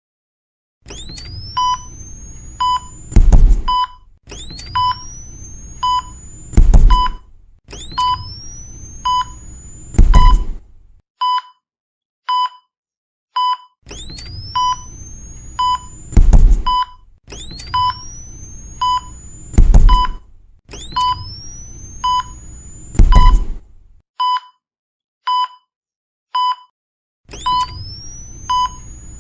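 Defibrillator sound effect: a rising charging whine ends in a loud shock thump, repeated about every 3.5 s in two sets of three. Under it a heart monitor beeps about once a second, and it beeps alone for a few seconds between the sets.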